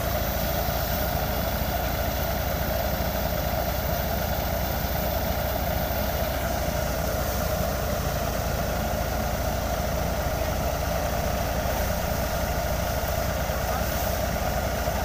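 Tractor engine running steadily while driving a crop threshing machine, a continuous even drone with no change in speed.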